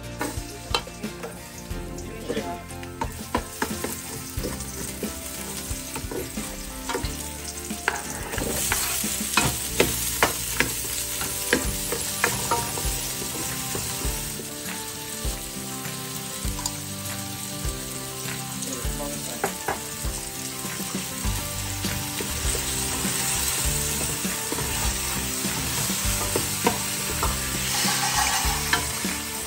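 Garlic, ginger and onion sizzling as they sauté in a metal pan, with a spatula scraping and tapping against the pan as they are stirred; the sizzle swells about a quarter of the way in. Near the end coconut milk is poured into the hot pan.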